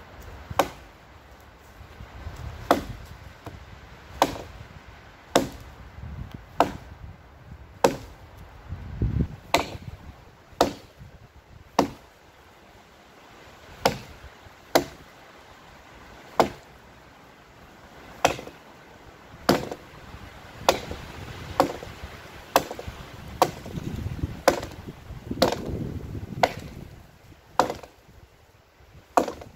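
Hatchet chopping into a fallen branch: about two dozen sharp chops, roughly one a second, with short pauses between some strokes.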